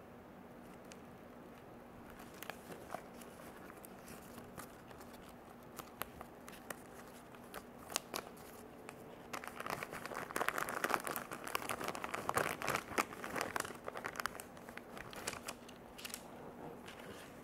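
Paper leaflet and a small cardboard toy-car box being handled: scattered light clicks and taps, then a few seconds of louder rustling and crinkling from about ten seconds in.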